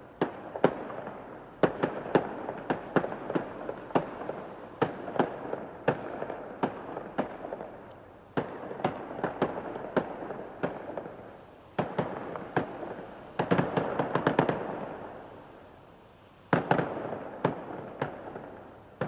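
Fireworks going off in quick succession: many sharp bangs with crackling between them, a dense crackling burst about two-thirds of the way through, a short lull, then a fresh volley near the end.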